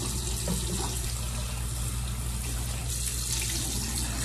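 Bathroom sink faucet running steadily into the basin. About three seconds in the water noise brightens as cupped hands scoop and splash it onto a face.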